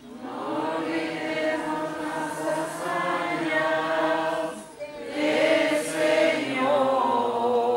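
Voices singing a sung part of the Mass, in two long held phrases with a short break about five seconds in.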